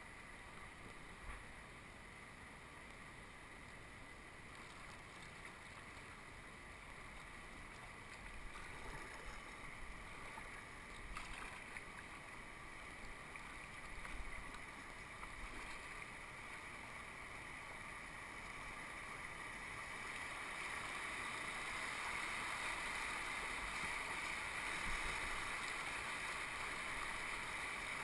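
Rushing water of river rapids around a kayak: a steady rushing noise with some uneven surges in the middle, growing louder from about two-thirds of the way through.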